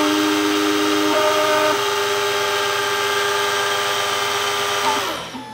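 Bianchi Laser 994 electronic key cutting machine's cutter milling one side of a high-security car key: a steady high-pitched whine with metal-cutting hiss, briefly shifting in pitch between about one and two seconds in, then winding down and stopping near the end as that side finishes.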